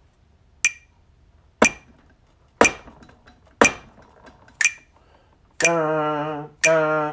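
Metronome clicking at about one beat a second. From about five and a half seconds in, a man's voice sings long held notes on one pitch, one per beat, in time with the clicks.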